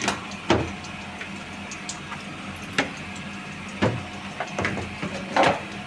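A steady machine hum, with a handful of sharp knocks or thuds at irregular intervals.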